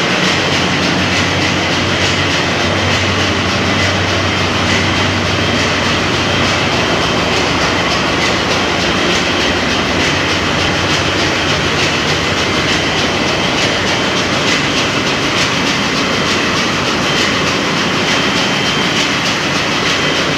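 Ship's engine-room din from diesel engines running: a loud, steady mechanical roar that does not let up.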